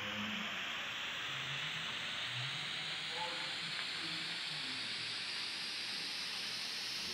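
Steady hiss, with faint low murmurs coming and going underneath.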